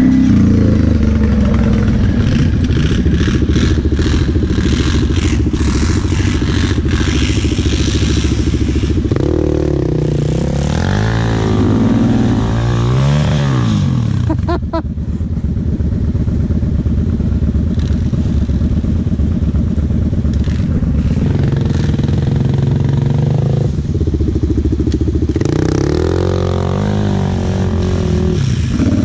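Kawasaki KFX 700 sport quad's V-twin engine heard from on board, running hard and revving up and down as it climbs and drops over a dirt track. Clatter and knocks come through in the first few seconds.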